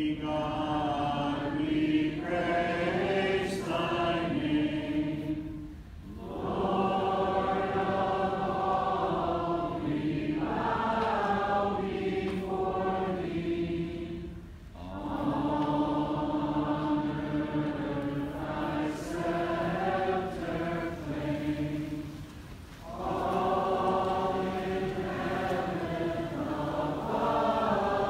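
A congregation singing a hymn together, in long held phrases of about eight seconds each with a short breath between them.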